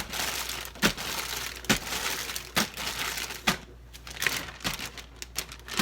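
Plastic bag crinkling and rustling as okra is stirred up in buttermilk inside it, with a sharp crackle about once a second for the first few seconds, then softer crinkling.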